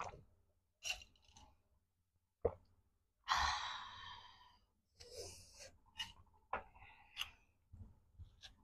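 A woman swallows iced water in a few gulps, then lets out a long, loud breathy exhale with her mouth open, a reaction to the burn of very spicy noodles. Shorter breaths and mouth sounds follow.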